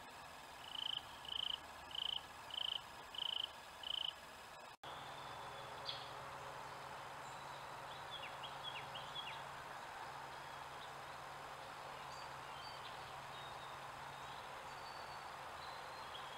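Six evenly spaced, high-pitched chirps, each steady in pitch and a little over half a second apart. After a sudden break, a steady hiss with a few faint, short high chirps.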